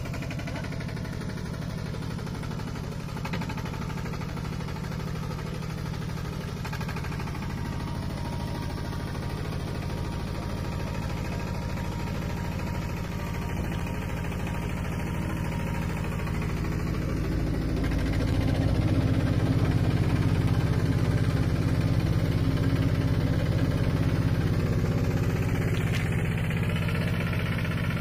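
Mini tractor's engine running steadily, growing louder about eighteen seconds in.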